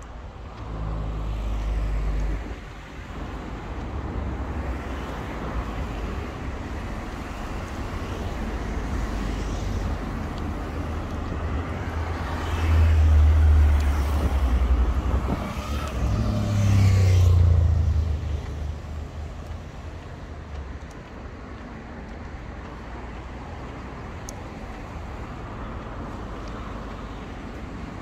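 Road traffic: cars driving past close by, their engine and tyre noise rising and fading. The two loudest cars pass one after the other a little past the middle, the second falling in pitch as it goes by, then the traffic settles to a quieter, steady hum.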